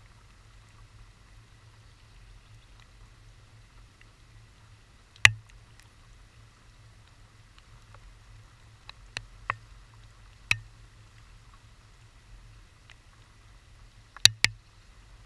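Water drops striking the camera housing: sharp single ticks at irregular intervals, about seven in all, the loudest about five seconds in and two in quick succession near the end, over a faint steady low hum.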